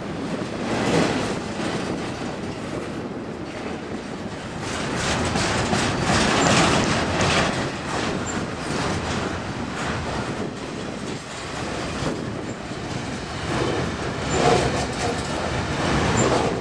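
Canadian Pacific double-stack container train passing close by, its well cars' steel wheels clattering rhythmically over the rail joints.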